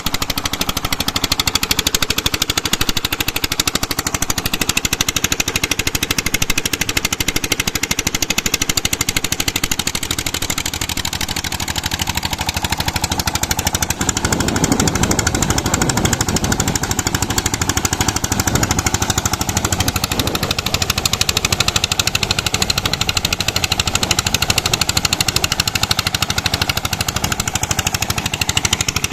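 Tubewell pump's engine running steadily with a fast, even pulsing beat as the repaired well draws water.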